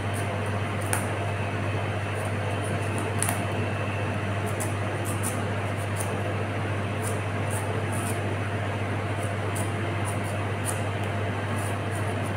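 Steady low machine hum of kitchen equipment, with faint, irregular scraping ticks from a knife shaving strips of skin off a bottle gourd.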